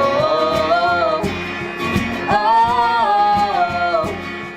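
Live band music: a singer holds two long sung notes over guitar accompaniment in a country-pop love song.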